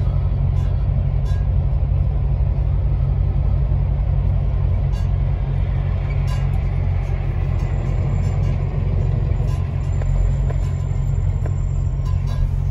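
Truck engine and road noise heard from inside the cab while driving: a steady low drone, with a few faint clicks and rattles now and then.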